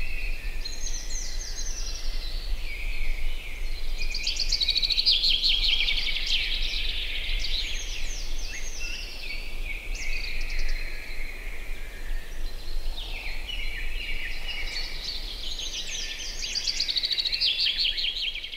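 Several songbirds singing at once, their chirps and rapid trills overlapping continuously, with bursts of quick repeated notes. A steady low rumble runs underneath.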